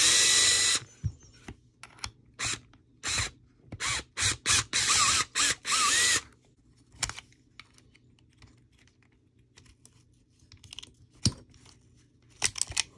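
Long screwdriver turning out the screw inside an airsoft M4's pistol grip. It makes bursts of metallic ratchet-like clicking and scraping, loudest in the first second and again from about four to six seconds in. Then come quieter scattered clicks of handling the grip and its parts.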